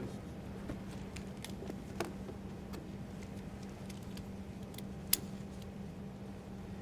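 Steady low hum of an airliner cabin, with a few scattered sharp clicks and knocks, the loudest about five seconds in.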